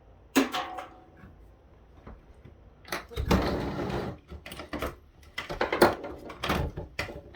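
Plastic parts of an AT&T 1600 desk phone being handled and worked apart. A sharp knock with a short creak about half a second in, a longer creaking scrape around three seconds in, then a run of clicks and knocks.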